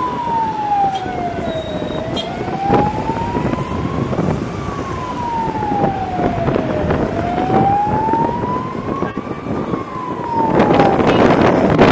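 Vehicle siren wailing, its pitch sliding slowly up and down about once every five seconds, over road and traffic noise. A louder rush of wind noise comes in near the end.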